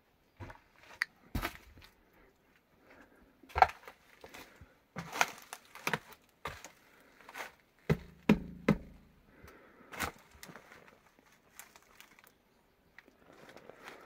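Footsteps crunching and knocking over loose boards, broken board sheets and rubble on a wooden hut floor: irregular sharp cracks and knocks, with wood creaking briefly about eight seconds in.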